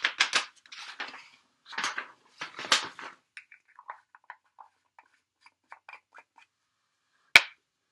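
Embossing powder poured off a folded sheet of paper back into its small plastic jar: rustling of paper and pouring powder for the first three seconds. Then the jar's screw lid is turned shut in a string of small plastic ticks, and there is one sharp knock near the end.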